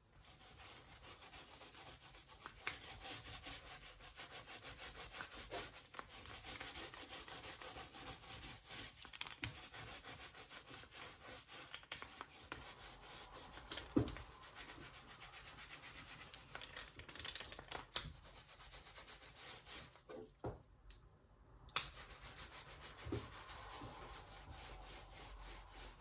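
Steady rubbing over the wooden press table as the tung-oil finish is worked into the wood. There is a short pause about three-quarters of the way through and a few light knocks, the sharpest about halfway.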